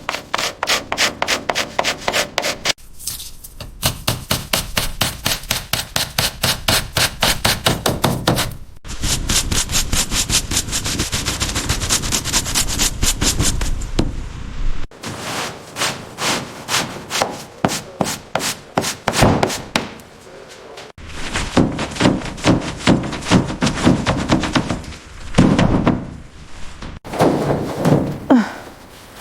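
Rapid back-and-forth scrubbing or sanding strokes, several a second, in a run of short clips cut together, where a rusted car is being cleaned back.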